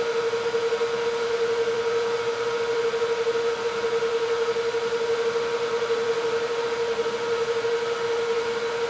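Steady machine hum with one constant mid-pitched tone and fainter higher tones over a light hiss, unchanging throughout.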